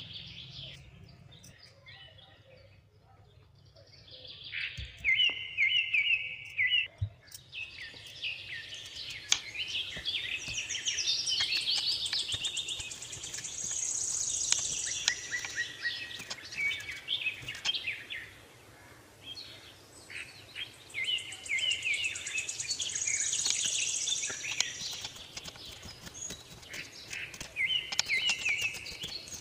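Birds singing: repeated high chirping phrases that swell and fade every few seconds, over faint taps of a knife slicing onion on a wooden cutting board.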